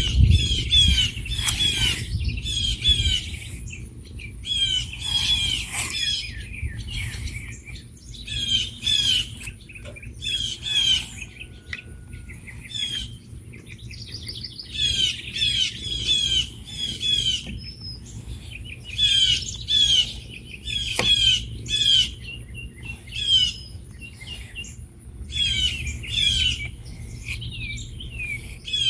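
Songbirds chirping: many short, falling chirps in clusters every second or so, with a low rumble underneath.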